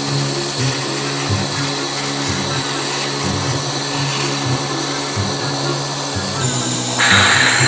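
UNi-CROWN oil-less vacuum pump running steadily with a hum and hiss, sucking air and poured liquid through a leak in a vacuum clamping fixture into its liquid trap. A louder hiss begins about seven seconds in.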